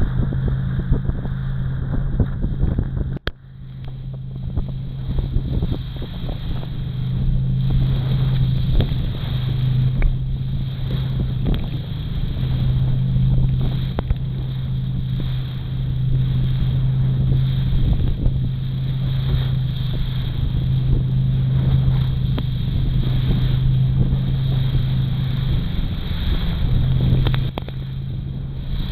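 Motorboat engine running steadily under way, with wind noise on the microphone and the hull slapping through choppy waves and spray. About three seconds in, the sound cuts out sharply for a moment with a click, then builds back up.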